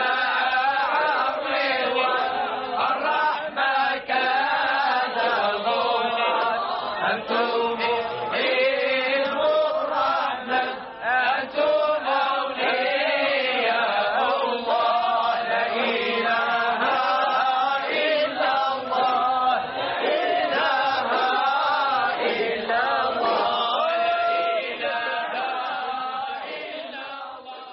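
A group of voices chanting a Sufi samaà (mystical devotional chant) together, fading out over the last few seconds.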